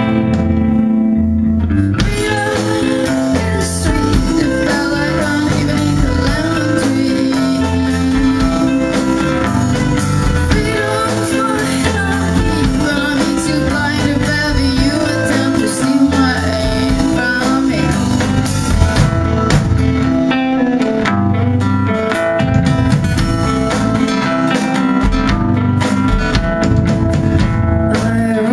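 Live indie rock band playing: a woman singing over strummed acoustic guitar, electric guitar, bass and drums with cymbals. The band comes in fuller about two seconds in.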